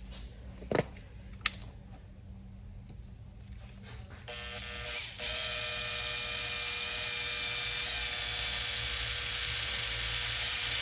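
Power screwdriver motor running steadily for several seconds, starting about four seconds in, as it drives a screw; a couple of sharp clicks come before it.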